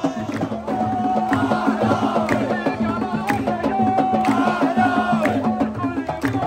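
A crowd of supporters singing a chant together over a steady beat of drums.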